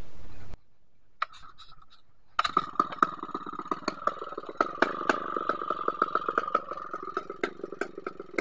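A chainsaw running faintly at a steady pitch, with many irregular clicks and knocks over it. It comes in a little over two seconds in, after a short quiet stretch with a few clicks.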